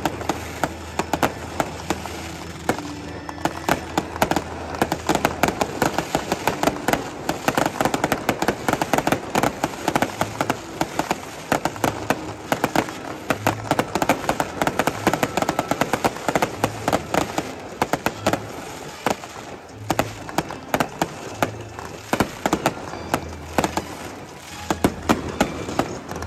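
Aerial fireworks going off in a dense, continuous run of sharp pops and crackling bursts, many per second.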